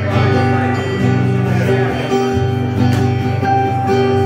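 Acoustic guitar strummed with an electric keyboard holding steady chords: the instrumental intro of a song played live.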